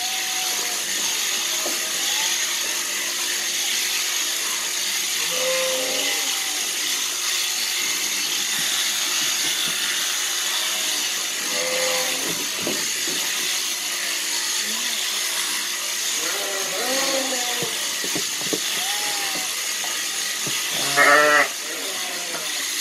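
Sheep bleating on and off, the loudest bleat near the end, over the steady high buzz of an overhead-driven sheep-shearing handpiece cutting through fleece.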